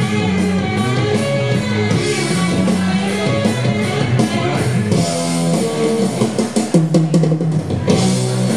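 Rock music with guitar and drums playing a steady beat.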